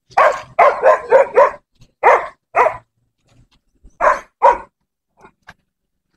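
Dog barking in short runs: a quick string of barks, then two, then two more.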